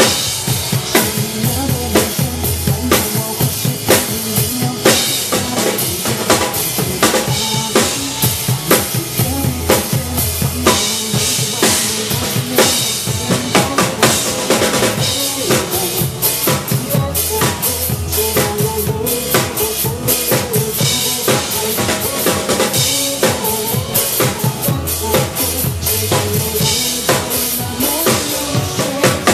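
Drum kit played along with backing music: quick, dense kick-drum and snare hits over held bass and melody notes.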